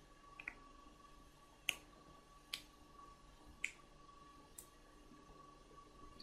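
Near silence with a faint steady hum, broken by four sharp, short clicks about a second apart and a softer double click near the start.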